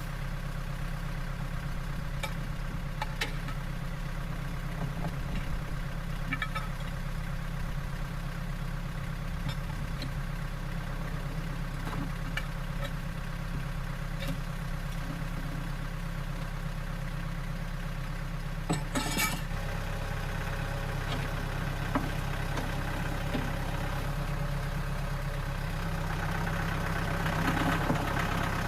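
An engine idles steadily, with scattered knocks and clicks and a louder clatter about two-thirds of the way through. The engine's note shifts around then and rises a little near the end.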